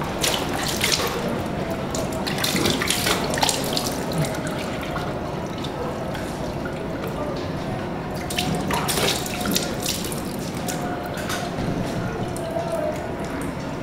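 Water running and splashing as hands are washed over buckets, a steady rush broken by splashes, busiest in the first few seconds and again about eight seconds in.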